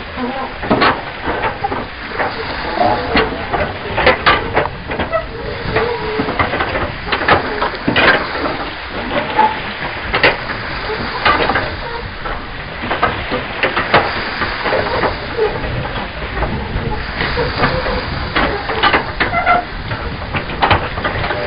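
Seawater lapping and gurgling against a pier: a steady hiss broken by many irregular slaps and pops.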